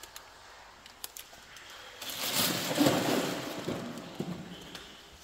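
Hand tools working on metal engine parts: a few light clicks, then a couple of seconds of irregular knocking and rattling of metal on metal.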